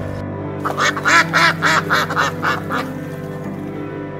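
A duck quacking: a quick run of about nine quacks at roughly four a second, over background music.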